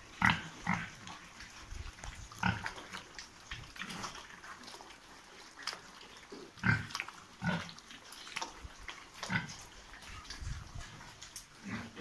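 Young white pigs grunting as they feed at a trough, in short separate grunts about every second or two. The loudest grunts come just after the start and about two-thirds of the way through.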